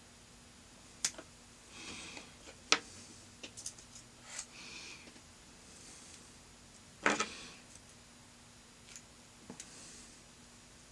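Quiet fly-tying handling sounds: a couple of sharp snips from small scissors trimming the tying thread in the first few seconds, then soft rustles of materials being handled, with one louder click about seven seconds in, over a faint steady hum.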